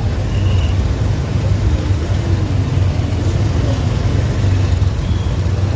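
Steady low rumble of road traffic engines, with a few faint voices over it.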